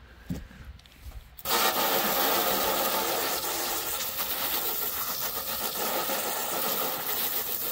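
Hot water from a pistol-grip garden hose nozzle spraying into a soapy metal roasting pan, starting suddenly about a second and a half in and running on as a steady hiss while the pan foams up.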